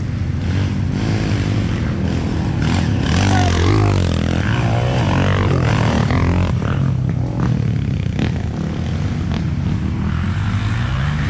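Off-road dirt bike engines revving hard as the bikes ride past on a dirt trail, the pitch rising and falling with the throttle. The sound is loudest a few seconds in, as a bike passes close.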